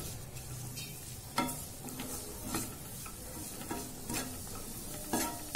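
Wooden spatula stirring chopped vegetables sautéing in oil in a kadhai, with a light sizzle and a few scrapes of the spatula against the pan.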